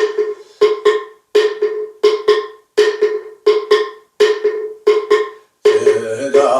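Moktak (Korean Buddhist wooden fish) struck in a steady beat, about eight strokes roughly 0.7 seconds apart, each a sharp knock with a short hollow ring. A male voice chanting resumes near the end.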